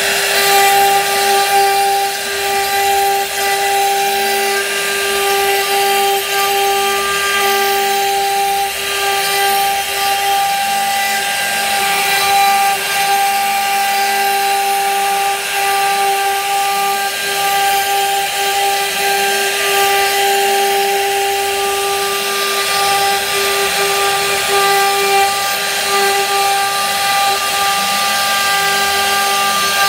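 CNC router spindle running with a steady whine while its small bit carves a relief pattern into a wooden board, over the noise of the cut wood.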